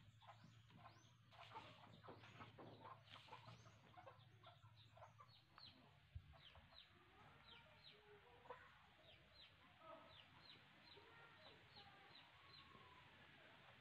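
Faint chickens in the background: clucking and short, high, falling chirps repeating about once or twice a second. Faint scratchy strokes are heard through the first few seconds.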